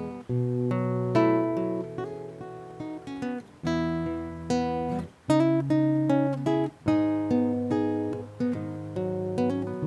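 Acoustic guitar strummed and plucked through a chord progression, with short breaks where the chords change: the instrumental introduction of a song, before the singing comes in.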